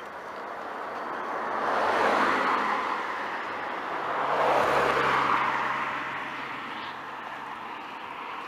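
Two cars passing close by on an asphalt road one after the other, each a rising and falling swell of tyre and engine noise, the first about two seconds in and the second about five seconds in.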